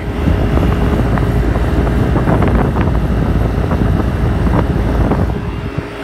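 Nordyne 3-ton central air conditioner's outdoor condensing unit running: a steady rush of air from the condenser fan over a low hum, with a faint steady tone. The unit is working very hard, which the owner suspects may be a partly plugged condenser coil that is not moving enough air.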